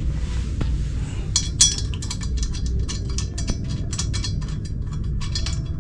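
Light metallic clinking of hand tools and metal parts being handled, in quick irregular clinks several a second starting about a second and a half in, over a steady low rumble.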